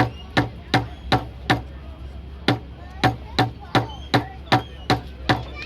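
A hammer tapping nails into a wooden kit-built airplane in a steady run of sharp knocks, about three a second, with a brief pause about two seconds in.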